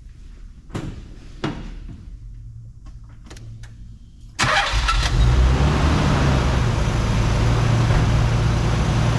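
A couple of knocks, then about four and a half seconds in a Nissan 300ZX's non-turbo 3.0-litre V6 starts and settles into a steady fast idle, warming up from cold with the choke on.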